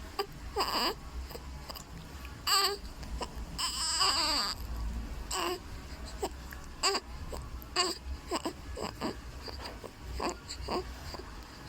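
Three-week-old baby fussing: a string of short cries and whimpers, with one longer wavering cry about four seconds in.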